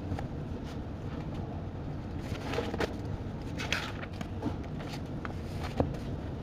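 Study café room ambience: a steady low hum of air handling, with scattered small clicks, taps and brief rustles from people working at desks, and one sharper tap near the end.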